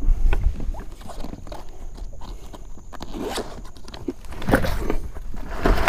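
Cloth rustling and scraping right against the microphone, with scattered clicks and knocks that grow louder near the end: a fishing shirt brushing the camera as the angler twists round in his kayak seat.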